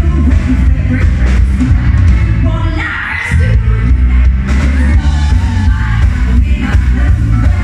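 Live rock band playing loud, with electric guitar, bass, keyboards and drums, and a man and a woman singing together. The bass and drums drop out briefly about three seconds in.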